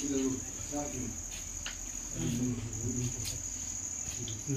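Crickets chirping in a steady, high-pitched trill, with faint voices talking underneath now and then.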